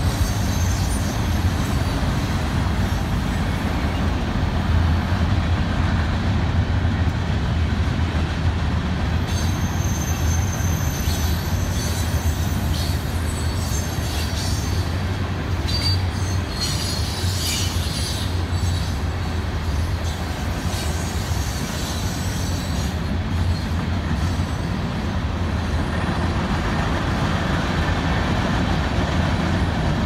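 Freight train cars rolling past, a steady low rumble of steel wheels on rail with faint high-pitched wheel squeals now and then in the middle stretch.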